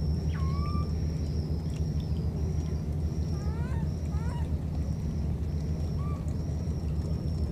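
A few short, high-pitched animal calls: a drawn-out call just after the start, then quick rising chirps about three and a half seconds in and once more near six seconds. Under them run a steady low hum and a high thin whine that keeps breaking off briefly.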